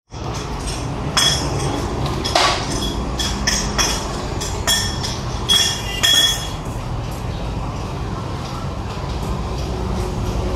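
A quick series of sharp metallic clinks with a ringing note as a wheel alignment clamp is fitted onto a wheel rim, ending about six seconds in. A steady low hum runs underneath.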